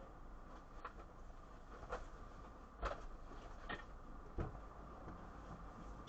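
Five faint, short knocks and clunks about a second apart over a low steady hum, the kind heard through a vehicle's dashcam microphone.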